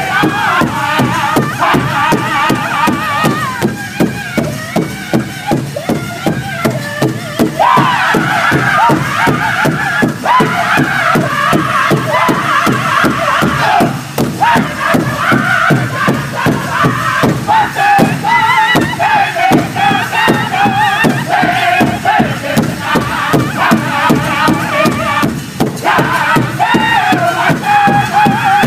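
Powwow drum group singing together in high, strained voices over steady, even beats on a shared big drum.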